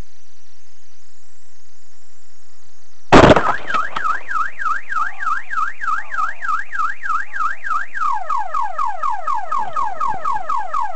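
A sudden loud bang, then a car alarm siren: a fast up-and-down warble that switches to quick falling chirps about three a second, cut off abruptly just before the end.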